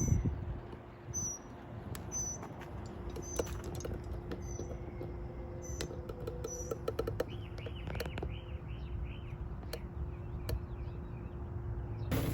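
Small birds chirping outdoors: a short high call repeated every half second or so, and a quick run of arching chirps in the middle, over a steady low hum.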